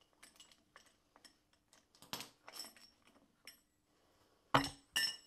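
Metal hand tools clinking and knocking against the engine as a socket tool is handled at the harmonic balancer bolt, with two sharp metallic clanks that ring briefly near the end.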